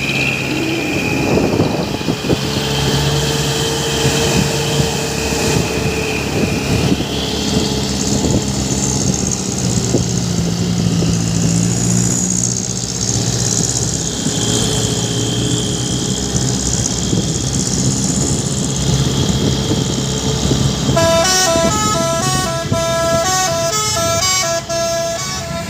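Steady vehicle noise from a truck and traffic, then about five seconds before the end a truck's telolet horn, a multi-trumpet musical air horn, plays a quick tune of short stepped notes.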